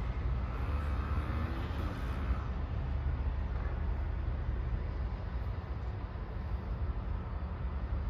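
Steady low rumble of outdoor urban background noise, with no distinct events standing out.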